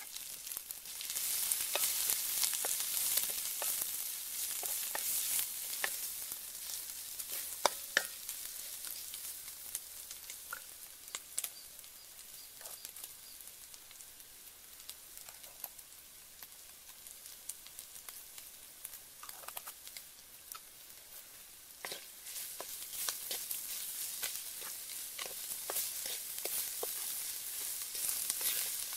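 Eel pieces and egg sizzling in hot oil in a wok, with a wooden spatula stirring and scraping the pan. The sizzle has scattered crackles and taps through it; it is louder near the start, dies down in the middle, and picks up again near the end.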